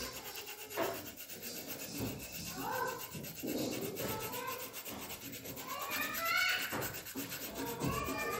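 Pencil lead scratching back and forth on paper, shading in dense dark strokes: a continuous rubbing. A few short wavering calls sound in the background, the clearest about two thirds of the way in.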